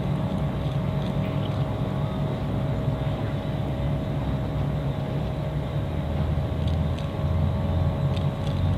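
A boat's engine running with a steady low drone and a faint steady whine above it; a deeper hum swells about six seconds in.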